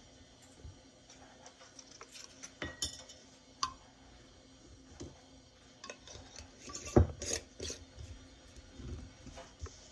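Metal canning lids and screw bands clinking and scraping against small glass mason jars as they are set on and screwed down: scattered light taps and clicks, some with a short metallic ring, and a louder knock about seven seconds in.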